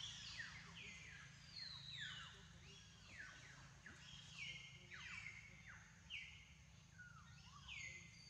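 Forest birds calling over and over, several overlapping: each call a sharp falling whistle, many levelling off into a short steady note, about one or two a second. A faint low hum runs underneath.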